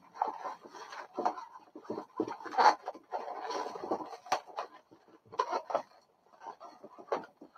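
Inflated latex modelling balloons squeaking and rubbing against each other as they are handled, twisted and woven together by hand, in short irregular bursts, loudest about two and a half seconds in.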